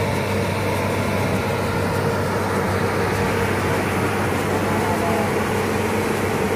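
Diesel engine of an XCMG rotary drilling rig running steadily, a constant low hum with no change in speed.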